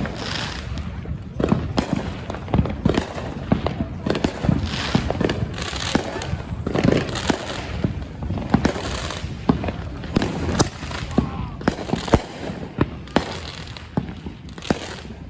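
Fireworks going off: many sharp bangs and pops in quick, irregular succession, with several bursts of crackling hiss.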